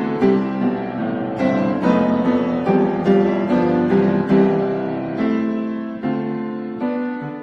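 Background piano music: a steady stream of struck chords and notes.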